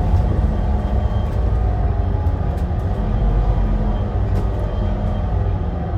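Volvo B7RLE bus's diesel engine and driveline running: a steady low rumble with a faint whine above it and a few light ticks.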